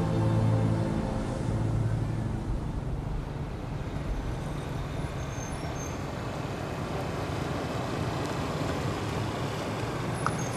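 Small motor scooter running along a road: a steady low engine hum, strongest in the first couple of seconds, over road and traffic noise.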